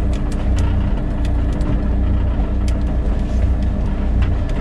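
A steady low motor rumble with a constant hum, the kind a boat's idling engine makes, with scattered light clicks and knocks.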